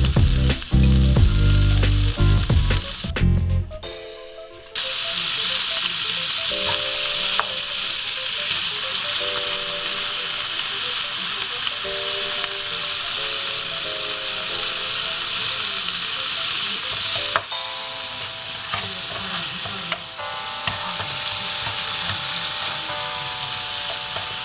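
A steady, even hiss starts about five seconds in and runs on, cutting off sharply at the very end, under soft background music with a slow melody; the first four seconds hold louder, deep notes of the music.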